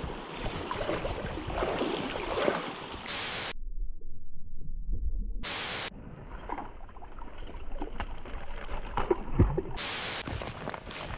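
Three short bursts of TV-static hiss, used as a video transition effect, about three, five and a half, and ten seconds in. Between them is outdoor creek-side sound of water and wind, heard muffled for a couple of seconds after the first burst.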